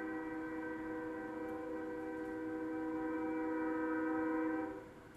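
Locomotive air horn, a Nathan K5HL five-chime, sounding one long steady chord that cuts off sharply near the end. It is heard through computer speakers from a live webcam stream.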